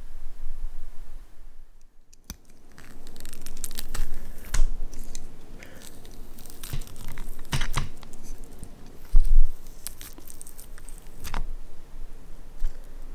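Butter-grilled whole squid being torn apart with metal tongs: moist tearing and squelching of the flesh, with irregular clicks of the tongs against each other and the plate. One heavy thump about nine seconds in.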